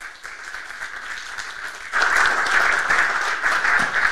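Audience applauding, the clapping growing clearly louder about two seconds in.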